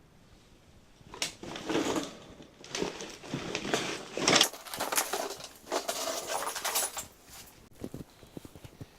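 Irregular crunching and crackling of debris underfoot, footsteps through litter and broken material on the floor of a derelict house. It starts about a second in, gets loudest around the middle and fades out near the end.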